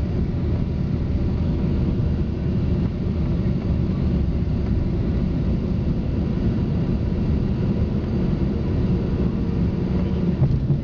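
Steady low rumble inside the passenger cabin of a Bombardier CRJ-200 regional jet as it lands and rolls out: noise from its rear-mounted GE CF34 turbofans, the airflow and the runway, with no distinct touchdown thump.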